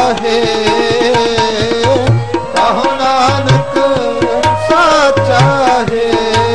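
Gurbani kirtan music: tabla playing a steady rhythm, with deep bass strokes every second or so, under held notes and a melody that slides between pitches.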